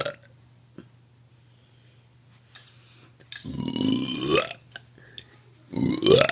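A woman belching twice: a long burp of about a second a little past the middle, its pitch rising, and a shorter burp near the end that also rises.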